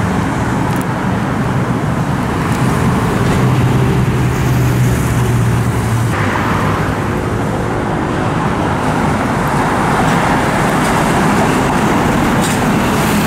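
Busy road traffic passing close by: motorcycle and car engines running with a steady low hum, then, after an abrupt change about six seconds in, heavier traffic with container trucks rolling past and a broad rush of tyre noise. Continuous and loud, with no single event standing out.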